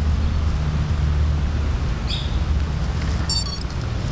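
Wind rumbling on the camera microphone throughout. About three seconds in comes a quick run of high electronic beeps in stepped pitches from the 210-size FPV quadcopter being powered up.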